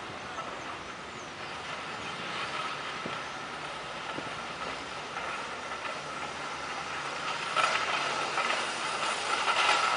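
Training sled dragged along a running track behind a sprinting man, a rough scraping rumble that grows louder as it comes closer, with a few sharper knocks near the end.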